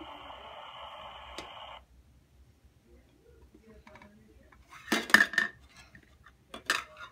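A toy kitchen stove's electronic sizzling sound effect plays from its small speaker as a steady hiss and cuts off abruptly about two seconds in. Then toy pots, pans and lids clatter: a loud cluster of knocks about five seconds in and a shorter one near the end.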